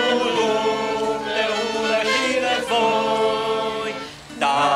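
A mixed group of voices singing a Romanian Christian hymn together to acoustic guitar, in long held notes. The singing breaks off briefly about four seconds in, then the next phrase begins.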